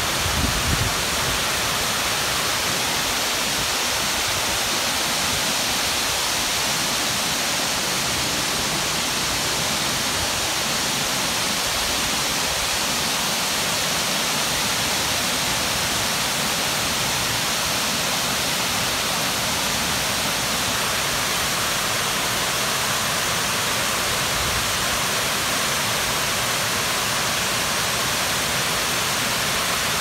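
Water spilling over the Nagashino weir in a broad waterfall: a steady, even rush of falling water with no let-up.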